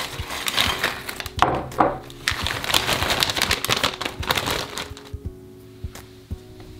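Plastic zip-top bag crinkling as round Ritz crackers are tipped into it from a bowl and the bag is lifted and laid flat. The crinkling dies down about five seconds in. Soft background music plays throughout.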